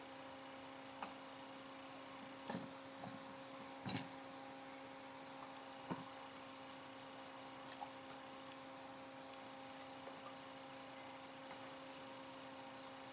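Steady electrical hum with a few scattered short knocks and clicks in the first half. The loudest knock comes about four seconds in.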